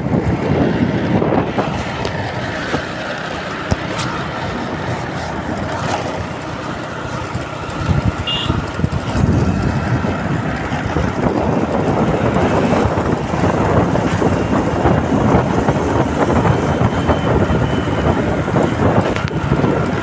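Motorcycle riding along a road, its engine running under a heavy rush of wind buffeting the microphone in gusts. A short high tone sounds once, about eight seconds in.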